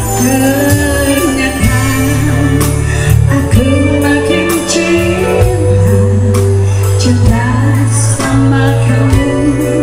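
Live band playing a song: a singer's voice carries the melody over held bass guitar notes and keyboard.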